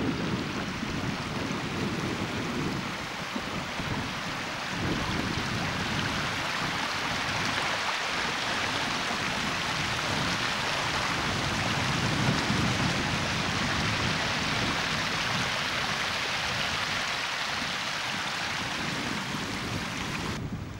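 Floodwater rushing and spilling across a road and over fields in a steady, even wash. Wind buffets the microphone in uneven low rumbles.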